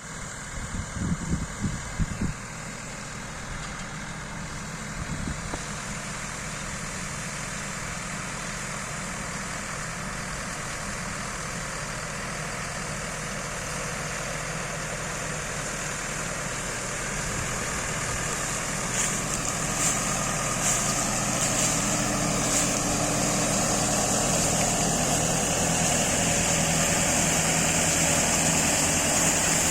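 Tractor engine running steadily, growing slowly louder, with a few knocks in the first couple of seconds and several sharp clicks about two-thirds of the way through.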